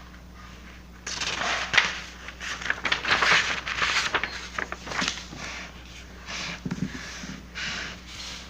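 Rustling and handling noises with scattered clicks, busiest in the first half and sparser later.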